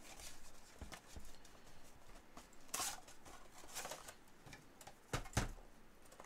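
Handling noise from a trading-card collector's pack: scattered rustles and light taps of cardboard and plastic packaging, with a louder rustle about three seconds in and a couple of soft knocks about five seconds in.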